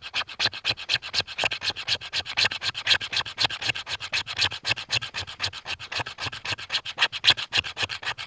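Fast, steady scraping strokes, about seven a second, like a blade being worked quickly over a hard surface.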